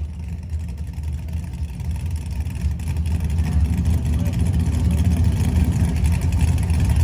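A car engine running at low revs, getting gradually louder.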